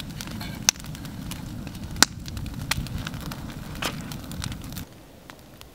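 Campfire crackling: a few sharp pops of burning wood over a low steady noise that drops away suddenly near the end.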